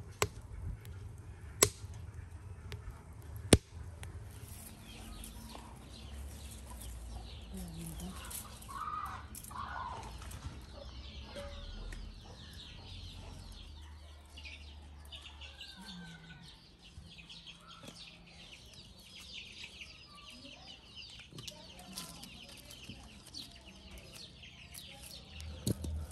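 Three sharp pops from a wood fire in a metal stove in the first few seconds, then chickens clucking, with small birds chirping in the background.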